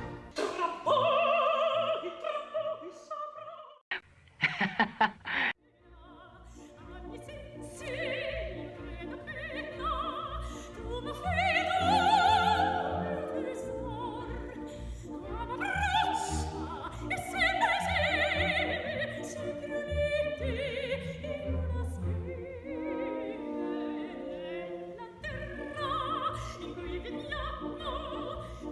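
Operatic singing voice with orchestral accompaniment; the sung notes waver in pitch with a pronounced vibrato. About four seconds in, the music breaks off for a moment with a few short, sharp sounds, then singing with orchestra resumes.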